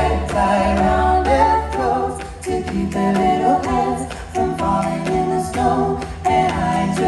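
Five-voice a cappella group singing close harmonies through a live concert sound system, with sharp percussive hits recurring on the beat.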